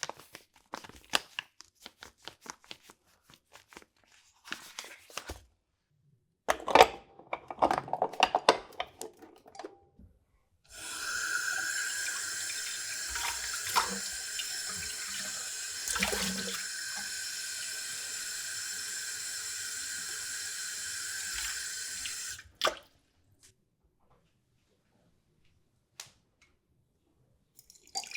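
Clicks and clatter of handling, then water running steadily for about twelve seconds with a high whine in it, cutting off abruptly, followed by a few light clicks.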